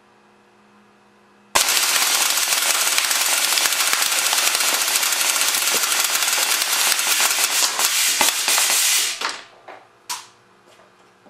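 .177 BB cannon on 450 psi air firing a long full-auto burst, a dense stream of rapid shots with BBs striking an aluminium drink can. It starts suddenly about a second and a half in, runs for about seven and a half seconds, then tails off into a few separate pops, the last about 10 s in.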